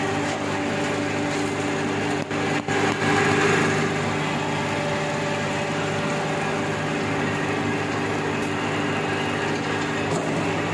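Silage baling machine running with a steady mechanical hum, dipping briefly twice a little over two seconds in.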